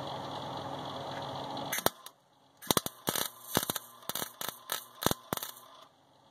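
Electric arc welder striking in a string of about ten short, sharp crackling bursts, welding a broken upper control arm mount plate back onto a pickup's frame. A single click comes just before the bursts begin.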